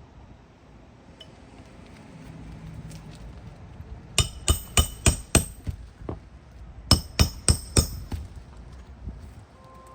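Hammer striking roofing nails in asphalt shingles: a quick run of five sharp metallic blows, then after a short pause four more, each blow ringing briefly.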